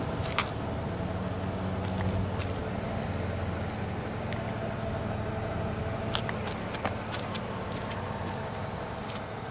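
2003 Mercedes-Benz E320's 3.2-litre inline-six engine idling steadily, with a few light clicks over it.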